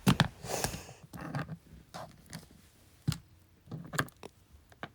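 A scattering of small sharp clicks and knocks, about ten over a few seconds, with light rustling between them.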